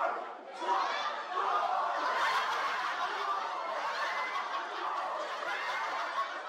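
Audience laughing, many people at once, swelling about a second in and carrying on steadily.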